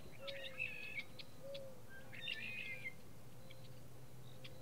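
Small birds chirping and twittering faintly: one bout of high calls near the start, another about halfway through, and a few single chirps between, over a low steady hum.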